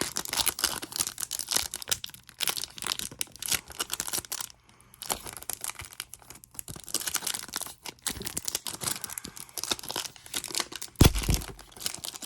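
Crinkling and tearing of trading card pack wrappers being opened and handled, an irregular crackle, with a louder thump near the end.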